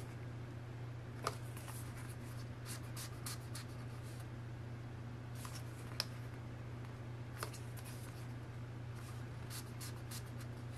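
Quiet rustling and light taps of printed paper and card items being handled, with three sharper clicks: about a second in, around the middle, and a little after. A steady low hum runs underneath.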